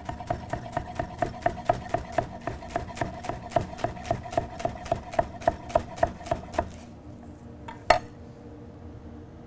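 Knife rapidly slicing scallions on a wooden cutting board, a steady run of sharp chops at about four a second that stops a little before seven seconds in. One sharper knock follows about a second later.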